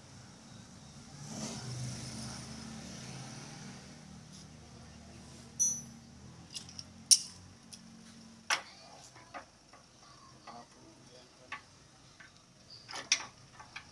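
A low mechanical hum for a few seconds that stops about five seconds in, then scattered sharp metallic clinks and knocks of tools and parts being handled.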